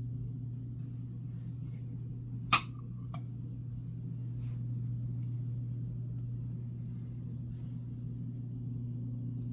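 A steady low hum, with a single sharp clink about two and a half seconds in and a fainter click half a second later.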